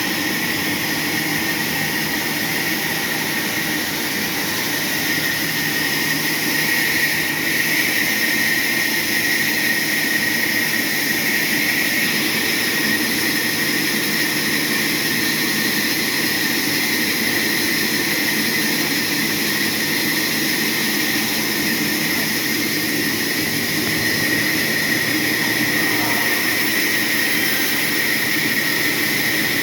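Sawmill circular saw running steadily, with a constant high whine over a steady rushing noise.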